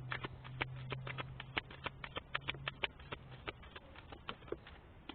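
Tarot cards being shuffled by hand: a rapid, irregular run of light snapping clicks as the cards slap together.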